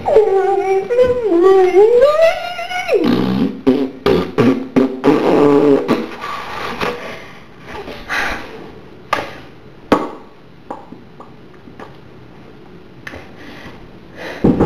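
A person's voice holding a long wavering note for about three seconds, followed by shorter broken vocal noises, then a few sharp clicks or knocks.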